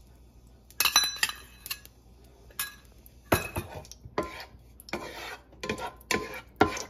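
A spoon clinks against a small stainless steel bowl while scraping out ghee, then scrapes back and forth in a nonstick frying pan, spreading the ghee in short strokes about two a second through the second half.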